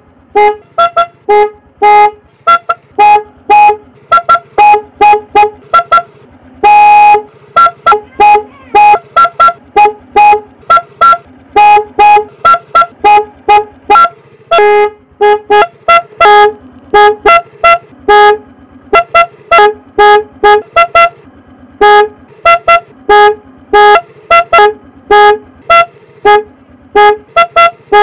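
A single-tone 12-volt Goyo snail horn for a motorcycle, sounding in many short toots in quick, uneven succession. A few blasts are held longer, one about seven seconds in and another about fifteen seconds in.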